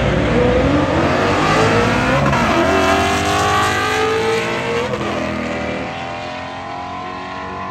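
Drag-racing cars accelerating hard down the strip. The engine note climbs, drops back at gear changes about two and a half and five seconds in, then grows steadier and quieter as the cars pull away.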